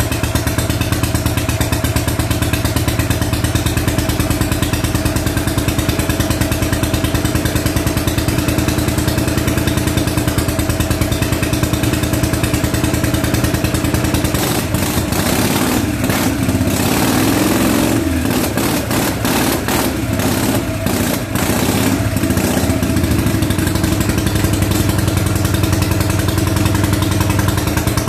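A 1965 Harley-Davidson Panhead V-twin engine runs steadily with a rapid, even firing rhythm on its second start after a rebuild. About halfway through, its speed shifts and the running turns uneven for several seconds, then it settles back to a steady rhythm.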